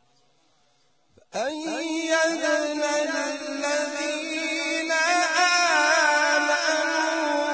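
A man reciting the Quran in the melodic, ornamented tilawat style, starting suddenly about a second in after a pause. He holds long notes whose pitch wavers and turns.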